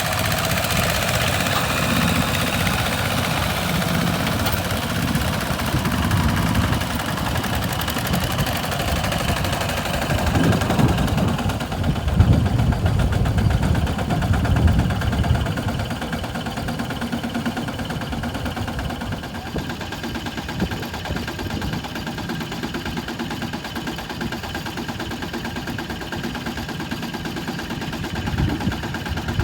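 Walking tractor's diesel engine running while stuck in mud, growing louder and uneven for several seconds in the middle, then settling into a steadier run.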